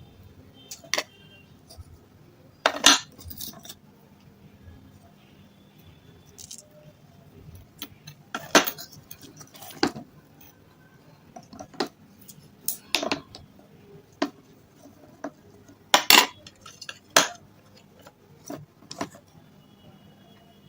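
Sharp, separate crunches and snaps of hard red stone chips being bitten and broken close to the microphone, about fifteen of them scattered through, with quiet in between.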